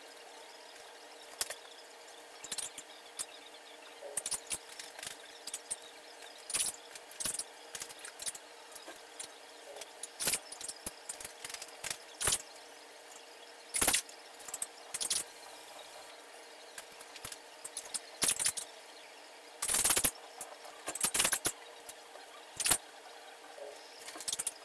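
A damp cotton dish towel being folded, pressed and twisted by hand on a granite countertop: irregular bursts of cloth rustling and brushing, with a few louder scrapes, over a faint steady hum.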